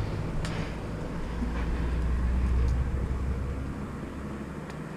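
Low, steady engine rumble of a vehicle running nearby, fading after about four seconds and dropping away near the end.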